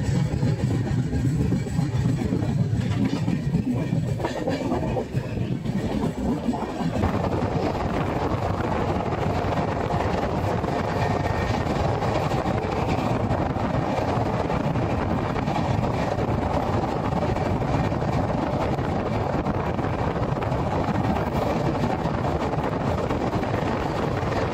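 12420 Gomti Express passenger train running along the track, heard from on board as continuous rail and running noise. A heavier low rumble in the first seven seconds or so gives way to a steadier, more even running noise.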